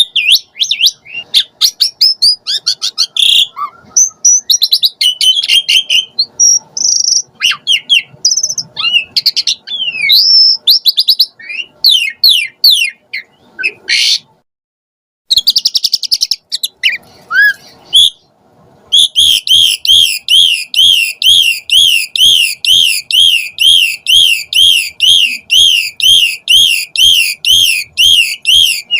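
Asian pied starling (jalak suren) singing loudly: a varied run of whistles and chattering notes, broken by a silence of about a second near the middle. For the last ten seconds it turns to one rapid rising-and-falling whistled phrase repeated two to three times a second.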